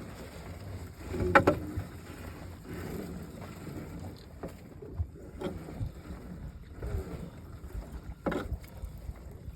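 Irregular knocks and thumps on a fishing boat over a low, steady rumble, with the strongest knocks about a second and a half in and near the end.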